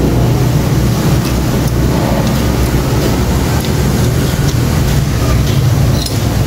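A steady low droning hum from a running machine, with a few faint small clicks over it.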